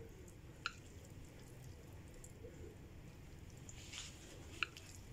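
Two light ticks of chopsticks against a ceramic plate, about four seconds apart, with a brief soft squish of noodles being lifted just before the second.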